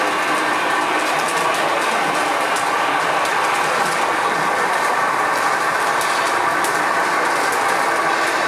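Steady whine of a scale RC truck's electric drive motor and gears, running on without a break, with faint clicking over it.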